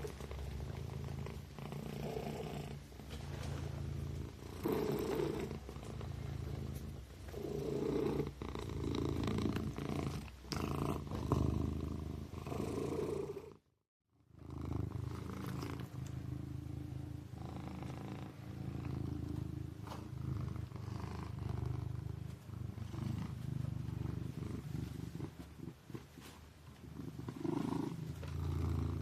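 Kitten purring steadily in swells, with a sudden break of under a second about halfway through.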